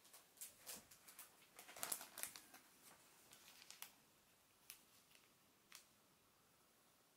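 Faint crinkling and light clicks of a plastic retail package being set down on a desk: a run of rustles over the first four seconds, then a couple of isolated ticks.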